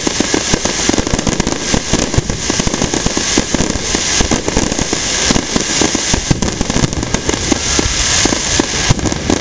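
Fireworks display: a dense, unbroken barrage of bangs and crackling, many reports a second with no let-up.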